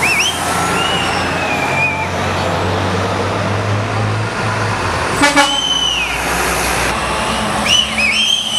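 Diesel semi trucks in a slow parade convoy running past, their engine drone fading about four seconds in. A brief truck horn toot comes about five seconds in, with several high, sliding whistles heard throughout.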